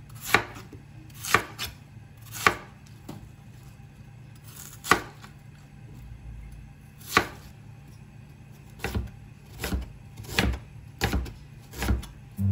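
Kitchen knife chopping a peeled root vegetable into chunks on a plastic cutting board: single sharp knife strikes every second or two. Near the end the strikes come quicker as a piece of ginger is sliced.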